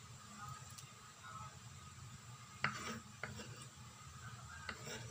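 Kitchen knife and hands knocking and scraping on a wooden cutting board and a plate as chopped green onions are swept off the board. It is a few light clicks and knocks, the sharpest a little past halfway, over a faint low hum.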